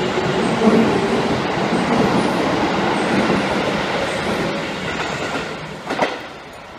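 Seibu 9000 series electric train running through a station without stopping: a steady loud rush of wheels on rails and car bodies going by close at hand, fading as the last cars pass. A brief knock near the end.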